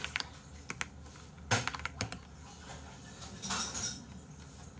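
Computer keyboard typing: scattered sharp key clicks, with a heavier cluster of keystrokes about a second and a half in. A short soft hiss comes a little past the middle.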